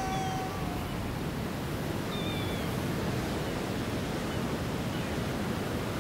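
Steady sea surf and wind noise. A long held tone trails off, dipping in pitch, within the first second, and a couple of faint high chirps come about two seconds in.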